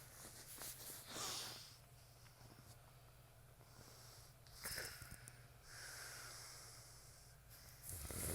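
Faint, wheezy snoring breaths from a sleeper. There are a few soft breaths with quiet gaps between them, and a louder one at the very end.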